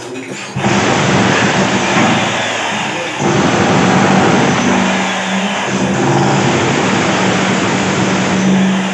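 Electric demolition hammer chipping old tiles and plaster off a bathroom wall, running hard in long stretches from about half a second in, with a short break about three seconds in and a brief dip near six seconds.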